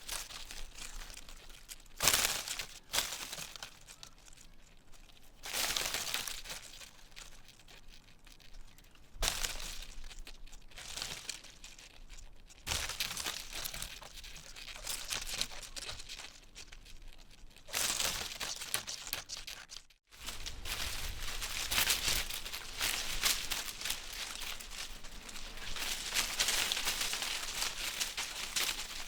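Wind blowing through trees, the leaves rustling in gusts that swell and ease every few seconds, then rustling more steadily after a brief break about twenty seconds in.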